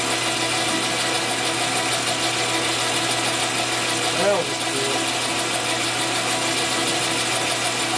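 A Jet metal lathe runs steadily, its gearing and motor giving an even whir while the operator hand-feeds the tool into the spinning part. About four seconds in there is one brief rising-and-falling tone.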